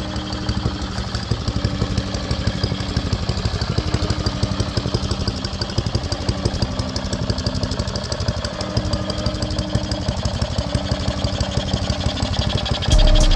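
Briggs & Stratton single-cylinder engine on a Baja mini bike running steadily with a rapid, even firing beat, on a carburetor the owner feels needs replacing. A louder low rumble comes in suddenly just before the end.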